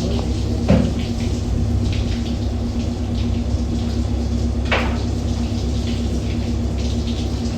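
Water running steadily from a tap or hose, over a constant low hum, with two short knocks: one about a second in and one near five seconds.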